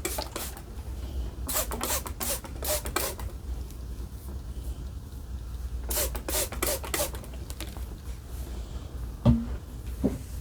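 Short bursts of rubbing and scraping in two clusters, with a brief pitched sound near the end, over a steady low hum.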